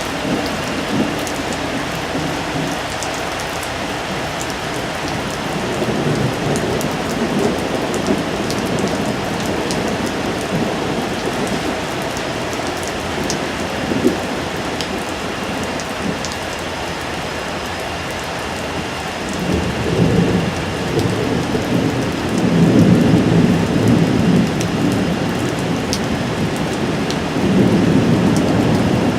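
Steady rain with rolls of thunder: one rumble about a quarter of the way in, and longer, louder rumbling through the last third.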